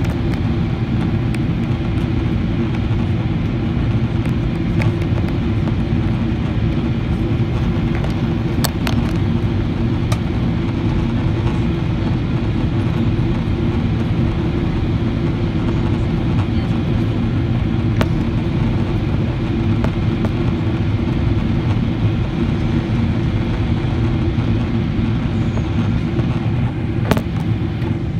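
Cabin noise of a Boeing 777-300ER in descent, heard from a window seat: a steady low rumble of engines and rushing air, with a few faint clicks.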